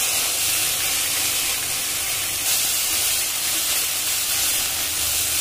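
Wet spice paste of ground green chilli and ginger sizzling in hot mustard oil in a kadai: a steady hiss that holds level throughout.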